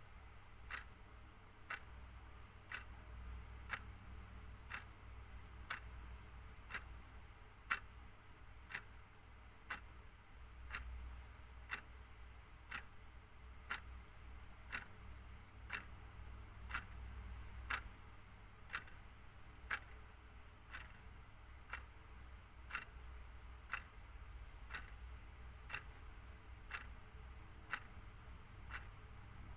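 Clock ticking steadily, about one tick a second, over a faint low hum.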